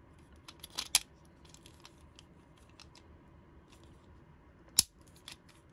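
Hard plastic clicks from the lever on the back of a Gomez Addams fast-food toy figure being worked, the mechanism that raises his arms in a finger-snapping motion. Two sharp snaps come about a second in and near the end, with lighter ticks and rattles between.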